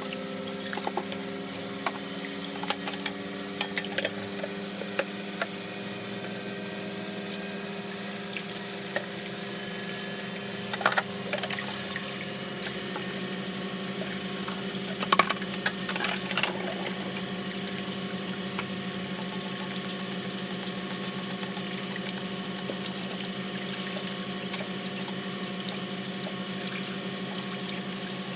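Electric motor running with a steady hum and a high whine that climbs slowly in pitch over the first ten seconds or so. A few knocks and rattles come about 11 and 15 seconds in.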